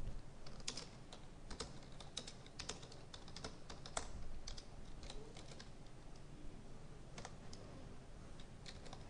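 Typing on a computer keyboard: a string of faint keystroke clicks at an irregular pace.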